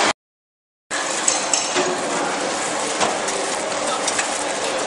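Puffed-corn snack processing machinery running: a steady noise with scattered light metallic clinks and rattles. The sound cuts out for under a second at the start, then comes back.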